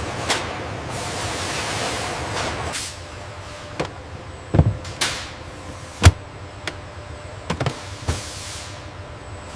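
Car factory assembly-line ambience: a steady hiss for about the first three seconds, then a string of sharp clunks and bangs, the loudest about six seconds in.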